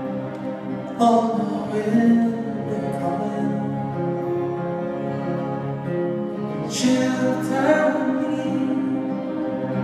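Live folk band playing a slow song: acoustic guitars strummed over sustained accordion, cello and electric guitar chords, with louder strums about a second in and again around seven seconds in.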